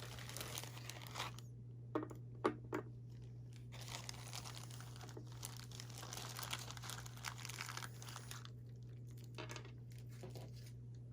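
Crinkling and rustling of plastic packaging being handled, with a few sharp clicks about two to three seconds in, over a steady low electrical hum.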